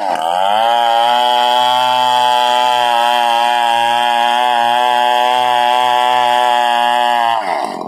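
Stihl chainsaw running hard at high revs, ripping a coconut trunk into lumber. Its pitch sags just after the start and then holds steady. Near the end it dips and climbs back up.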